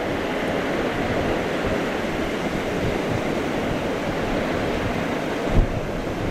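Wind blowing across the microphone over a steady rushing hiss, with a sharper gust about five and a half seconds in.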